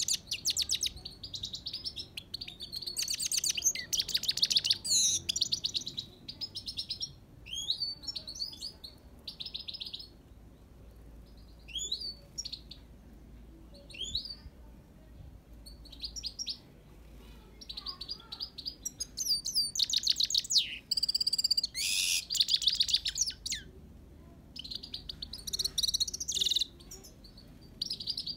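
Himalayan (grey-crowned) goldfinch singing: bursts of rapid twittering trills and quick gliding notes, broken by short pauses.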